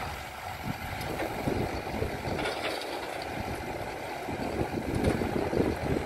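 Jubatus IB1200 cotton baler running: a steady mechanical hum, with irregular low rumbling that sounds like wind on the microphone.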